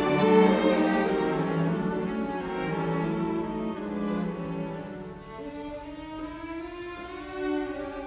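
Background music: slow, sustained string instruments holding long notes, growing softer about halfway through.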